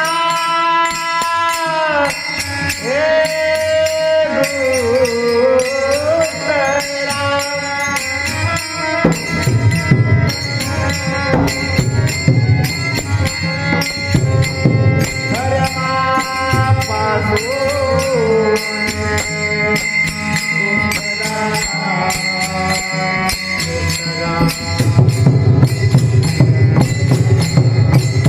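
Marathi devotional abhang singing: a male voice holding and bending long melodic notes, over a steady beat of small hand cymbals. A drum joins about nine seconds in, and the accompaniment grows louder near the end.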